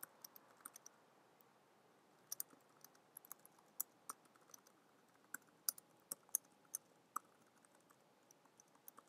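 Computer keyboard typing: faint, irregular keystroke clicks, a few at a time with short pauses between.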